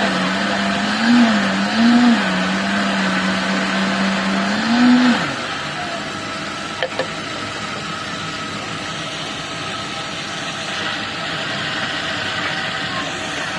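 Electric blender motor running, with its pitch rising briefly a few times, then winding down and stopping about five seconds in. Steady background noise follows, with a single click about seven seconds in.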